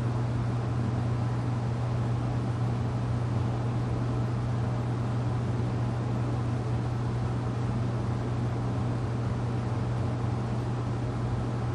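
FASCO Parlour Fan model 938 ceiling fan running, a steady low motor hum over a soft rush of air, with no change in level.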